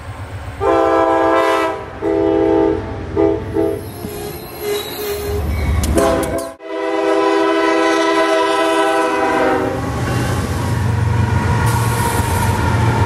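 Diesel locomotive air horns sounding multi-note chords: first a series of blasts, two long then shorter ones, then after an abrupt cut one long held blast at a grade crossing. In the last few seconds a locomotive passes close by with a low engine rumble and rail noise.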